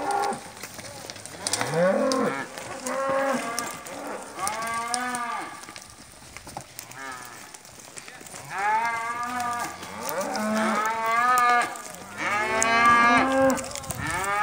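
A herd of cows mooing over and over: about a dozen long calls, several overlapping, loudest near the end.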